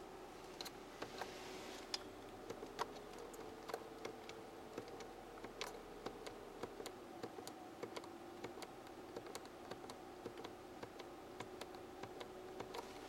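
Quiet car cabin: a faint steady hum, slightly wavering in pitch, with scattered light clicks and ticks at about one or two a second, as the climate-control buttons are handled and the A/C button is pressed on.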